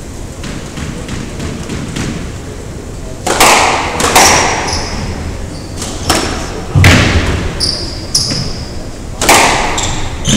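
Squash rally: the ball cracking off rackets and the court walls about half a dozen times from about three seconds in, each hit ringing in the enclosed court, with brief high squeaks of shoes on the wooden floor between hits.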